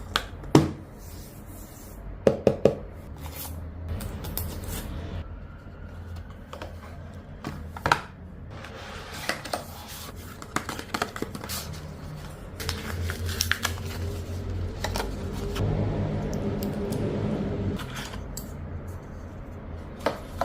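Smartwatch packaging being handled and opened by hand: scattered clicks, taps and scrapes of cardboard and plastic, with a steadier stretch of scraping in the second half.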